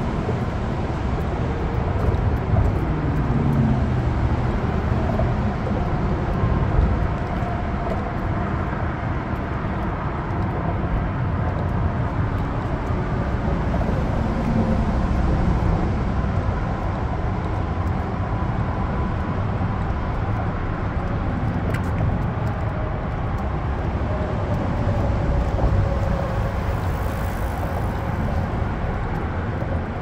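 Steady freeway traffic noise from the interstate alongside: many cars and trucks passing at speed, their tyres and engines blending into one continuous low rumble with faint passing whines.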